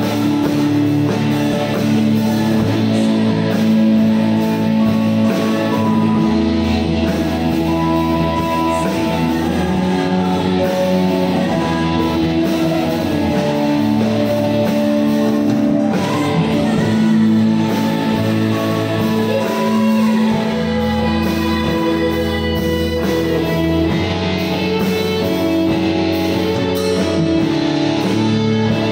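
Live band playing a song together: electric guitars, keyboard and drums, at a steady loud level.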